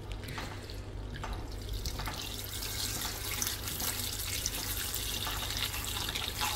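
Handheld battery milk frother whisking raw eggs in a stainless steel bowl: a steady low hum with the wet churning of the beaten eggs.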